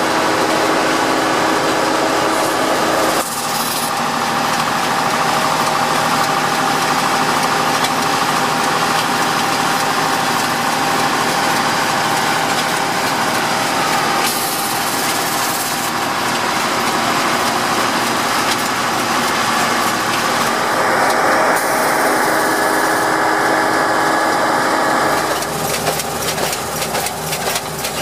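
The converted Agrifac ZA-215 beet harvester's engine running steadily under load while the Forigo power harrow beneath it churns the soil. The sound shifts abruptly a few times.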